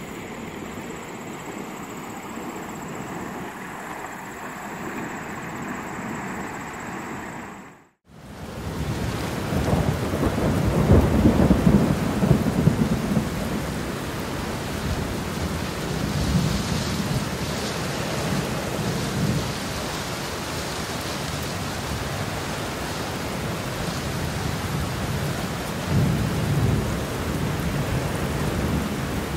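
Swollen floodwater rushing steadily for the first eight seconds. After a sudden cut it gives way to steady rain with low rolls of thunder, the loudest roll a few seconds after the cut and another near the end.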